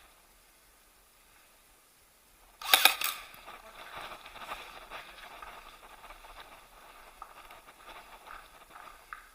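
A sudden loud clatter right at the head-mounted microphone a little under three seconds in, then irregular crunching and rustling of an airsoft player moving on foot.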